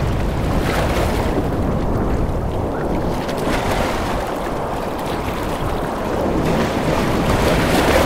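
Ocean surf breaking on a beach: a continuous wash of waves that swells and eases, growing louder near the end as a wave comes in, with wind rumbling on the microphone.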